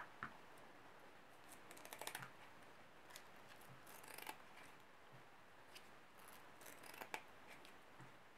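Kitchen scissors snipping the fins off a mackerel: faint, irregular snips and clicks.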